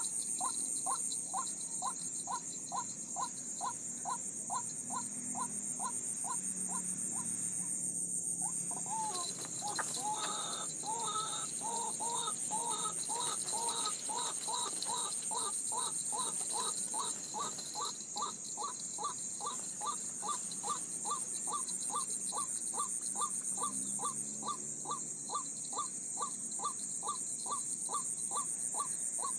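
A bird's cawing call repeated very evenly, about twice a second, as a lure for birds at a line of wire snares. For a few seconds about ten seconds in, a second, more uneven call joins it. A steady high-pitched buzz runs underneath.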